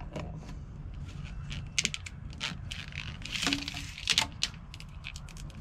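Corrugated plastic wire wrap being handled and worked around a bundle of wires, giving scattered clicks and crinkling rustles, with a longer rustle a little past halfway.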